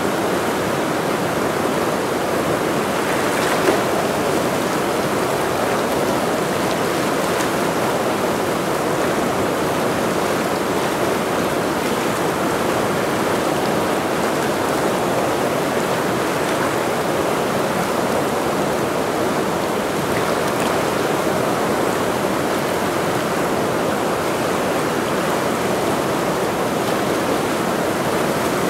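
Mountain river water flowing, a steady, unbroken rush of water, with one brief click about four seconds in.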